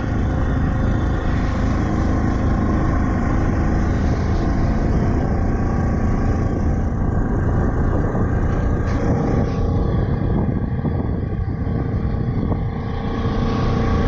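A jet boat's 4.8 L LS V8 running steadily under way, dipping briefly in level near the end.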